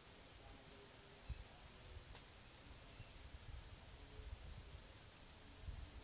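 Quiet room tone: a faint, steady high-pitched whine runs throughout, with a few soft low thumps of the camera being carried and a single click about two seconds in.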